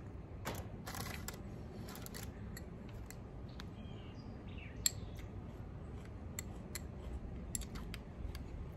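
Metal spoon clicking and scraping against a small glass bowl as food is scooped and eaten, with one sharper clink about five seconds in. Faint bird chirps over a steady outdoor background.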